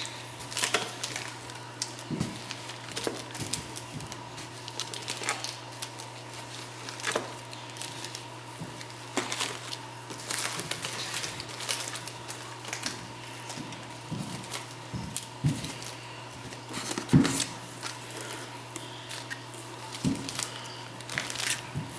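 Small plastic and anti-static bags of LEDs crinkling and clicking as they are handled and dropped onto a pile, in irregular bursts. A steady low hum runs underneath.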